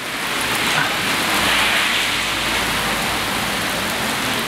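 Heavy rain pouring down onto wet pavement, a steady hiss.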